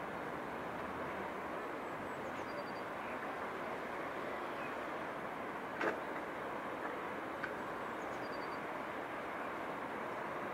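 Steady hum of distant city traffic, with a short high chirp twice and a few faint clicks.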